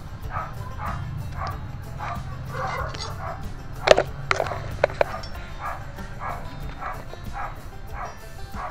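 Background music with a steady, even beat, broken about four to five seconds in by a few sharp metallic clicks as the stainless gas stove is handled.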